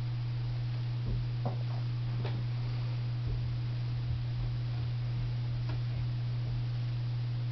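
Steady low electrical hum, with a handful of faint soft taps and knocks from a kitten's paws on a carpeted cat tree platform and a springy toy on elastic being batted.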